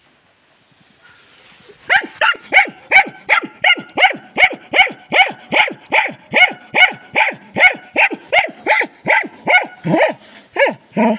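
Dog barking rapidly and insistently, about three barks a second, each bark dropping in pitch, starting about two seconds in, at a hedgehog curled into a defensive ball.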